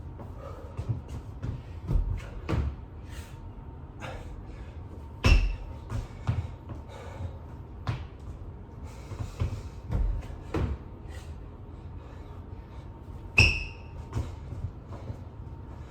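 Bodyweight burpees on a floor: thuds of hands and feet landing, with the loudest impacts every two to three seconds, two heavier ones about five seconds in and near the end, and short bursts of hard breathing between them.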